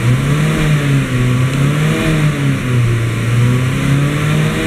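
Alfa Romeo 159's 2.2 JTS four-cylinder petrol engine being revved with the car standing still, heard from inside the cabin. The revs rise and fall several times between about 3,000 and 4,000 rpm, climbing again near the end.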